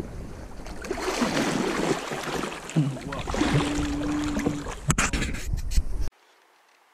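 Water splashing and rushing against a canoe hull in river current, with wind on the microphone and a few brief voice sounds mixed in. It cuts off suddenly about six seconds in to a faint hiss.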